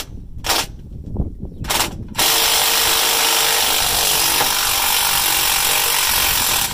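Cordless impact wrench: a few short taps on the trigger, then about four seconds of steady hammering that cuts off near the end as it works loose a bolt holding the tractor's sway block.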